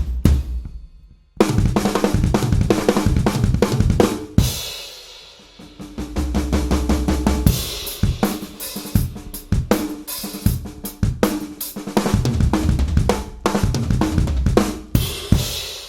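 Drum kit playing grooves and fills: kick, snare, toms, hi-hat and cymbals, recorded through a Yamaha EAD10 with trigger-layered snare and toms on its "Breakbeats" preset. A brief stop about a second in, then continuous playing with a cymbal ringing out after about four seconds.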